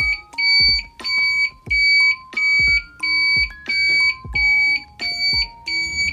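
Motorcycle turn-signal flasher relay with a built-in buzzer beeping while the left indicator flashes: a high-pitched beep about one and a half times a second, each with a click from the relay. The beeping tells the rider the indicator is on.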